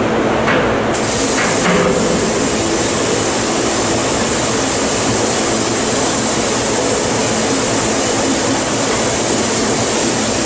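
Steady rushing hiss of liquid pouring through an automatic drum filler's lance into a steel drum, starting about a second in and stopping near the end, over a steady machine hum. A couple of short clicks sound near the start as the filling begins.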